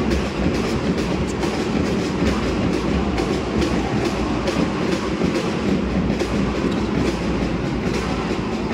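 Basketball arena ambience during live play: a steady din from the crowd and court, with frequent short sharp knocks scattered through it.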